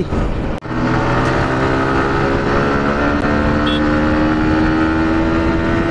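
Sport motorcycle engine and exhaust pulling hard in gear, its note rising steadily as the bike accelerates, with wind rush over the rider; the sound drops out briefly about half a second in, then picks up again.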